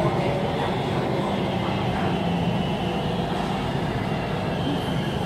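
BTS Skytrain car running along the elevated track, heard from inside the carriage as a steady rumble. A faint high steady tone joins about three seconds in.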